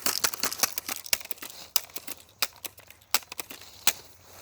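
A BB gun being handled between shots: a run of quick, irregular clicks and rattles, densest in the first couple of seconds and then thinning to a few sharper clicks.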